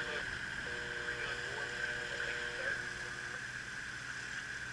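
Steady background noise aboard a boat under way, with a faint steady tone from about half a second in to past the middle.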